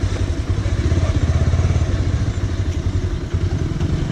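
Bajaj Pulsar 180 motorcycle's single-cylinder engine running steadily at low road speed, a fast even low-pitched pulse.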